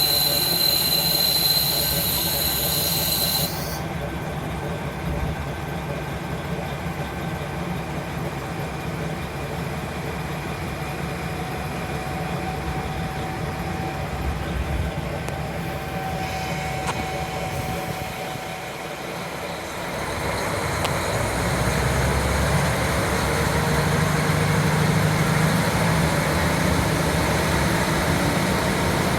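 JR Hokkaido KiHa 40 diesel railcar running, heard from inside with wind rushing in through an open window. A high hiss with a steady whistling tone stands out for the first three seconds or so; about 20 seconds in, the diesel engine's low drone gets louder as the car powers up.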